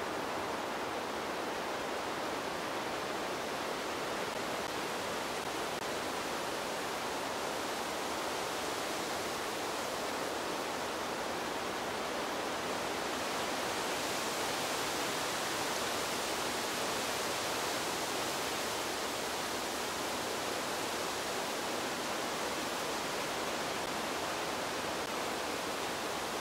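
Wind blowing through trees: a steady rushing noise that swells and brightens a little around the middle.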